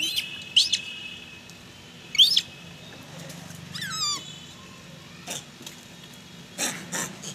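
High-pitched animal calls: a few short, sharp rising chirps, then a longer warbling call that falls steeply in pitch about four seconds in, with a couple of harsher, noisier calls near the end.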